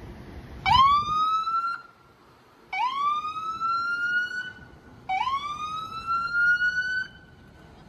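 Ambulance siren sounding three short rising whoops, each climbing in pitch for one to two seconds and then cut off.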